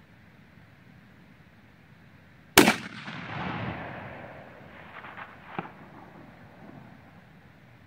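A single 6mm Creedmoor rifle shot, a sharp crack followed by a rolling echo that fades over about two seconds. A few small clicks follow about three seconds after the shot.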